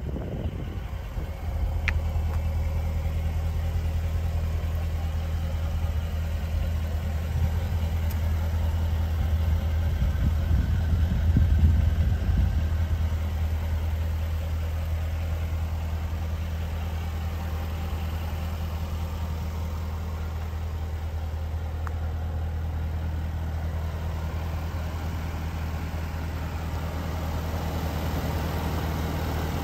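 Jaguar F-Type SVR's supercharged 5.0-litre V8 idling steadily, a low even rumble that grows a little louder around ten to twelve seconds in.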